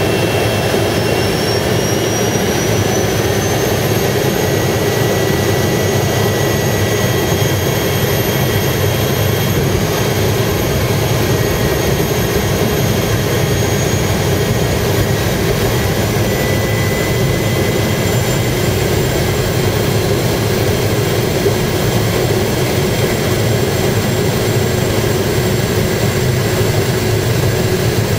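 Single-engine floatplane's piston engine and propeller running steadily, heard from inside the cockpit, with thin high whines that rise in pitch a few seconds in and then hold steady.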